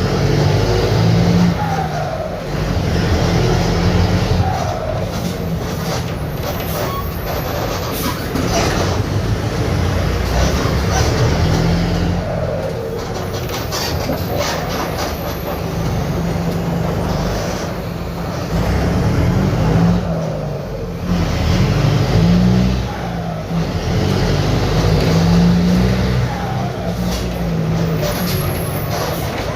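Mercedes-Benz OF-1721 BlueTec 5 bus diesel engine running with a holed exhaust, its note rising and falling repeatedly as it revs up through the gears and drops back. A few short hisses of air come in between.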